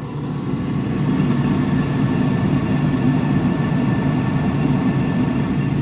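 Fuel oil furnace burner firing with a fresh nozzle: steady low rumble of the burner blower and flame, growing louder over the first second and then holding even. It runs smoothly, without erratic behaviour, the sign of a burner working properly after the nozzle and electrodes were serviced.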